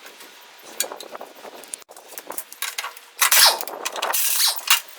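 Metal tools clinking and knocking against the snow blower's steel housing as the worn side skid shoe is unbolted. A louder, scraping stretch comes over the last two seconds.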